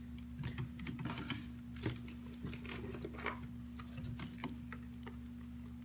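Cardboard packaging being handled: scattered light taps, scrapes and rustles as a boxed soap-making kit is lifted out of a shipping box, over a steady low hum.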